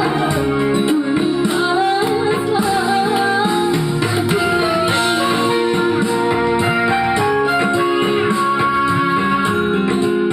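Music: a voice singing a melody over guitar accompaniment.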